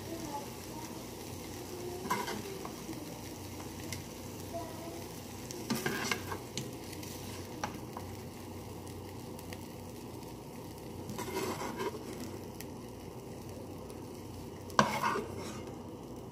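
Chicken pieces sizzling steadily in hot oil in a non-stick frying pan while a metal spoon scoops them out. The spoon scrapes and clinks against the pan a few times, loudest near the end.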